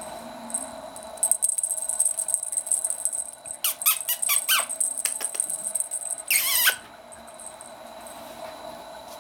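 A kitten playing with a wand toy on a quilted bedspread: scratchy rustling of claws and fabric, then a quick run of short squeaks about halfway through and one longer, louder squeak at about six and a half seconds.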